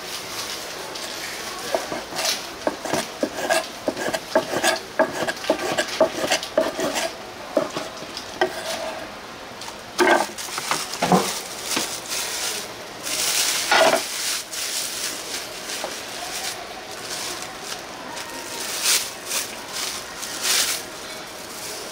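Kitchen work at a food stall: quick clicks and knocks of utensils and a metal tray or dishes, with scraping and clattering. The clicks come fast for several seconds near the start, and a few louder scrapes and clatters follow.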